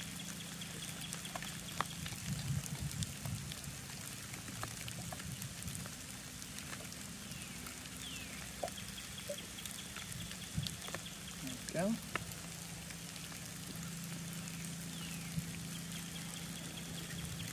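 Faint clicks and scrapes of a Scandi-ground stick-tang carving knife being rocked into a green stick to cut a notch. A high call, a short falling note and then a steady whistle lasting about two seconds, comes three times about seven seconds apart over a steady low hum.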